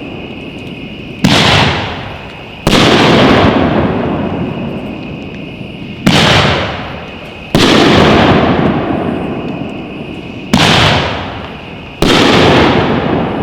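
Firework mortar rack of 2-inch shells firing: three shells in turn, each a sharp launch thump followed about a second and a half later by a loud break high overhead, with a long fading tail after each report.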